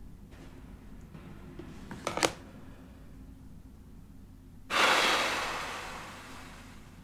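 A few light clicks and a sharp clack about two seconds in as a mobile phone is set down on a desk. About two seconds later comes a sudden loud rush of breath blown out through puffed cheeks, fading away over about two seconds.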